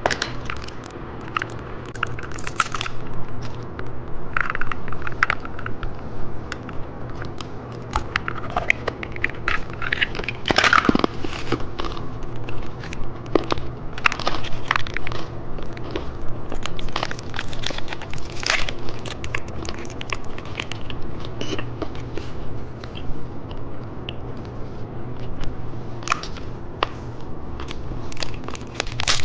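A person chewing candy close to the microphone, with many irregular crisp crunches and crackles. A low steady hum runs underneath.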